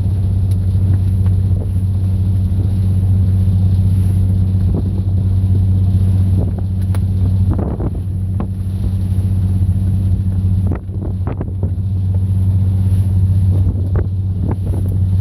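Fishing boat's diesel engine running steadily under way, a deep even drone heard on board, with wind on the microphone and a few brief sharp noises.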